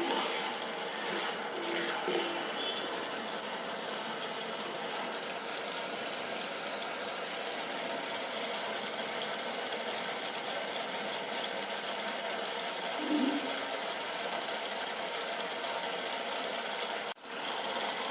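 Coconut milk sizzling and bubbling steadily in a nonstick pan over low flame as it cooks down and the coconut oil separates out, with a brief break near the end.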